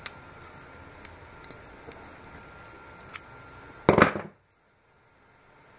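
Diagonal side-cutting pliers clicking faintly against a metal retaining clip on a soldering iron's barrel, then a short, loud clatter about four seconds in as the pliers are laid on the wooden workbench. The sound then cuts off suddenly to near silence.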